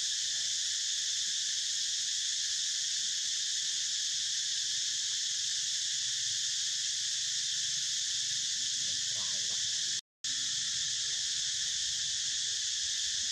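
Steady insect chorus, a dense high-pitched buzzing drone that does not let up. It cuts out for a split second about ten seconds in.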